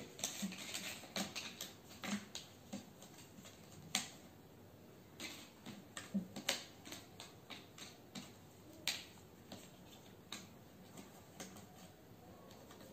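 Jigsaw puzzle pieces being shuffled, picked up and set down on a hard board: a scatter of light, irregular clicks and taps, the sharpest about four seconds in and again about nine seconds in.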